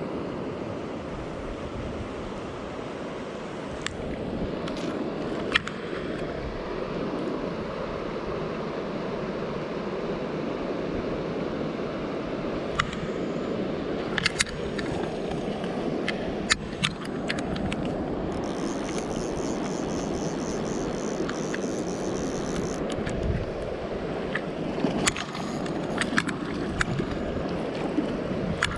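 Mountain river rushing steadily over stones, with scattered sharp clicks and splashes from a hooked fish. A high, rapid ticking runs for a few seconds past the middle.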